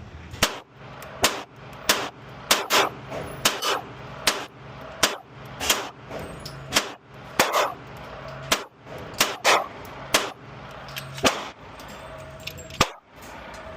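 Pistol gunfire on an indoor range: a steady string of about twenty sharp shots, roughly one to two a second, more than one shooter firing. Among them is a Canik TTI Combat 9mm pistol fired at a target.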